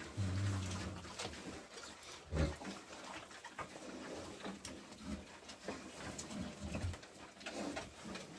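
Vietnamese pot-bellied pigs feeding on fresh grass, giving low grunts with scattered chewing and rustling. The loudest grunts come just after the start and about two and a half seconds in.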